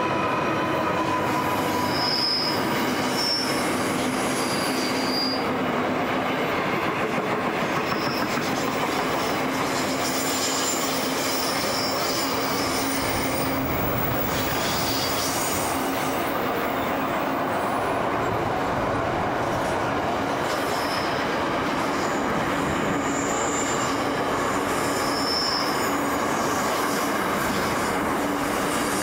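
Loaded container wagons of a freight train rolling past at steady speed: a continuous rumble of steel wheels on rail, with short high-pitched wheel squeals now and then.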